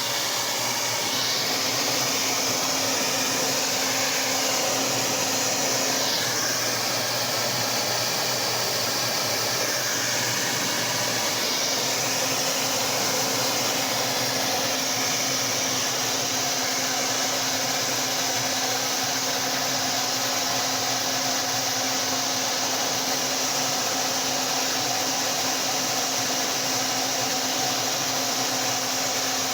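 Hand-held hair dryer blowing hot air steadily, used to melt ice built up around a refrigerator's evaporator fan.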